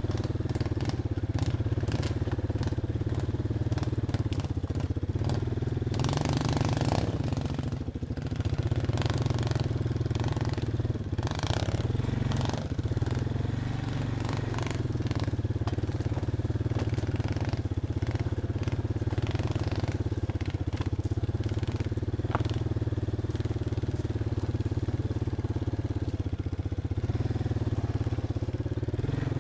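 Off-road vehicle engine running steadily while riding on a trail, with scattered clatter and rustling from the ride over rough ground.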